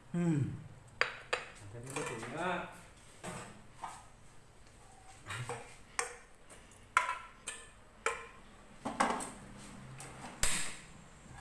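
Kitchen clatter: a metal spatula knocking and scraping in a frying pan, with about a dozen sharp clinks spread through, and the pan set down on the gas hob near the end with the loudest knock.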